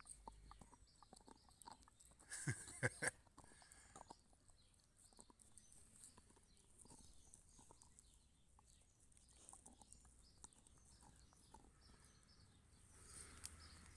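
A Belgian Malinois gnawing a hard chunk: faint, irregular crunching and clicking of teeth, with a louder flurry of crunches about two and a half seconds in.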